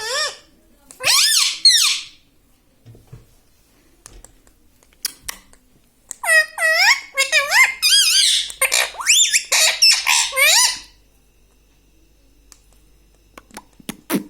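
Indian ringneck parrot making shrill, squeaky calls with fast wavering pitch: a short call at the start, two more about a second in, and a longer string of calls from about six to eleven seconds.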